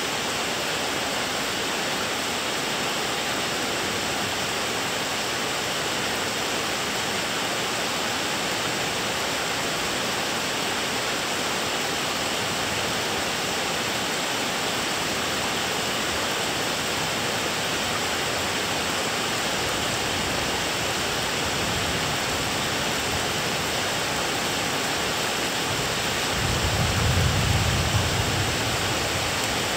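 Steady rain during a thunderstorm, with a low rumble of thunder swelling near the end and lasting a few seconds.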